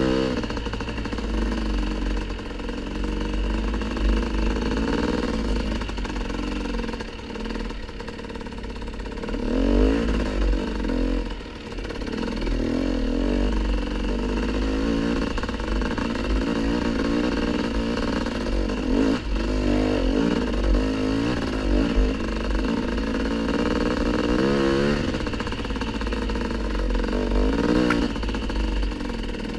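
Dirt bike engine running under way on a trail, its pitch rising and falling as the throttle is opened and eased off. The engine backs off briefly about twelve seconds in.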